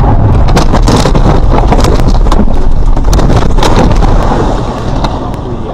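Car crashing off the road and down a bank: loud rumbling with a rapid run of bangs and knocks from the car body, easing off after about four seconds.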